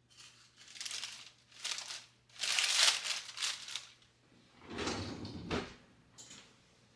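Several short bouts of rustling and scraping, as of objects being handled, the loudest in the middle; a duller, heavier bout comes about five seconds in.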